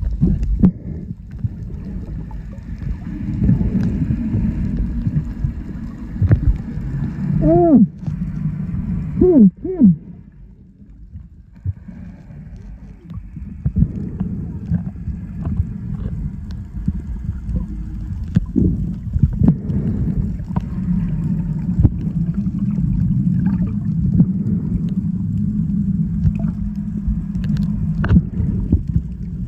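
Underwater noise picked up by a submerged camera: a steady low rumble with gurgling and scattered clicks. About eight to ten seconds in, a few short tones glide up and back down.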